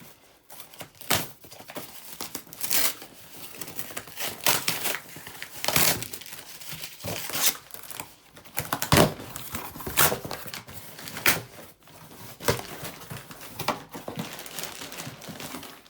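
Box and packaging being opened and the backpack unpacked: irregular rustling and crinkling of packaging in uneven bursts, with several louder rips and scrapes spread through.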